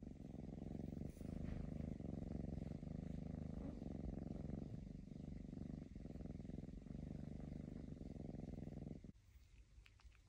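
A kitten purring steadily and close up. The purr stops suddenly about nine seconds in.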